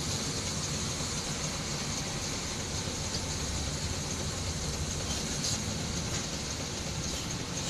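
Steady drone of a bus's diesel engine mixed with road and wind noise, heard from inside the moving bus's cab.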